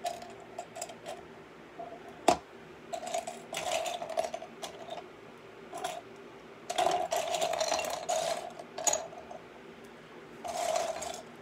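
Small plastic LEGO pieces clicking and rattling as loose parts are rummaged through, with one sharp click about two seconds in and several longer spells of clattering.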